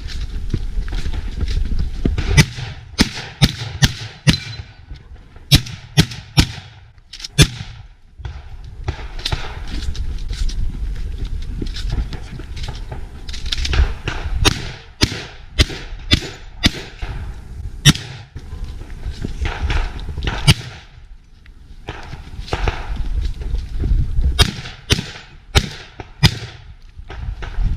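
Breda B12i 12-gauge semi-automatic shotgun fired in quick strings of shots, groups of two to five, with short pauses between the groups. A steady low rumble runs under and between the shots.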